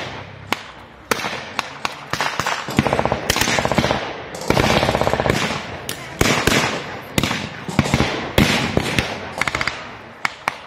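Blank gunfire in a staged battle: scattered single rifle shots mixed with several short bursts of automatic fire, each burst under a second long.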